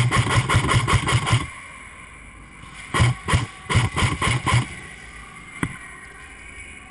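Airsoft rifle firing fully automatic bursts: a rapid rattle of shots that stops about a second and a half in, a second burst about three seconds in, then a single sharp shot near the end.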